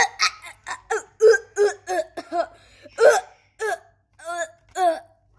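A voice making a quick run of short, hiccup-like gagging noises, about three to four a second with a brief pause near the end: mock gagging as a swab is pushed down a teddy's throat.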